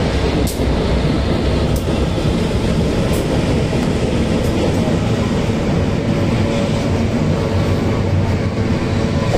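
Diesel-electric freight train passing close by, with a steady rumble of locomotives and then container flatcars rolling over the rails. Faint clicks come about every second and a half during the first half.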